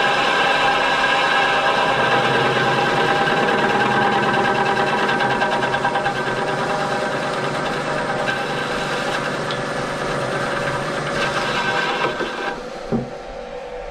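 Vertical milling machine running, its spindle turning a boring head on power downfeed to open out a hole in a plate: a steady mechanical whine of several fixed tones. About twelve and a half seconds in the sound drops away sharply, and a single knock follows.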